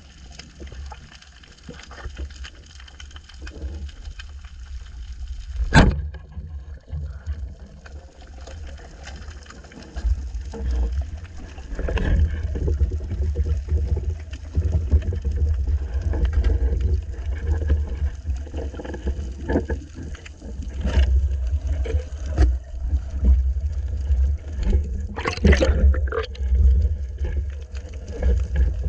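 Moving water with a heavy low rumble against the microphone, and scattered sharp clicks and knocks, the loudest about six seconds in and another cluster near the end.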